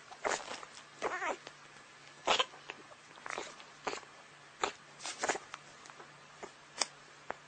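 Black puppy suckling from a baby bottle: short, sharp sucking and smacking noises at irregular moments, with a brief squeaky whine about a second in.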